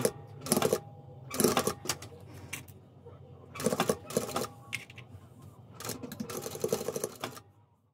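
Sewing machine stitching a seam through layered cotton fabric in four short runs with pauses between, over a low steady hum.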